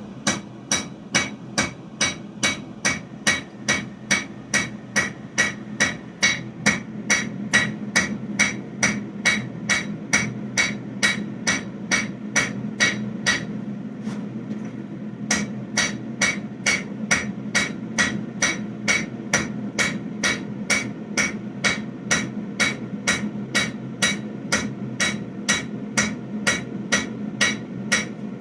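Hand hammer striking a hot damascus steel bar on the anvil face, steady blows about two a second with a metallic ring, pausing briefly about halfway through: flattening the bar to even out the lumps and grooves left by working on the anvil horn. A steady low hum runs underneath.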